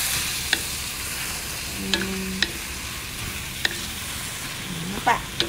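Shredded jicama, carrot, tempeh and tofu sizzling in a pan as they are stirred, with a steady frying hiss and several sharp clicks of the spatula against the pan. The vegetables are being sautéed until they wilt.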